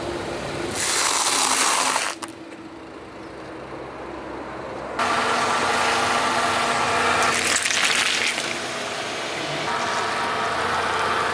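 A car's tyre slowly rolling over and crushing small objects on asphalt, with crunching and crackling in several bursts and a rapid run of cracks near the end, over the car's engine running.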